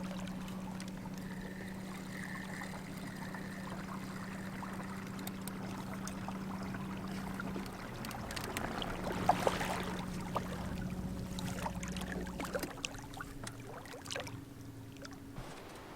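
Solar-charged electric canoe motor running with a steady hum, water noise around the hull and a few light knocks about nine to ten seconds in. About thirteen seconds in, the hum gives way to a fainter, higher tone.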